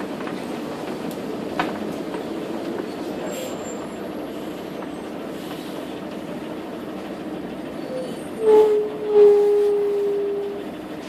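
Interior of a Jelcz PR110 CNG city bus on the move: a steady drone of its gas engine and road noise. About eight seconds in comes a loud squeal, slightly falling in pitch and lasting about two seconds, as the bus's brakes slow it.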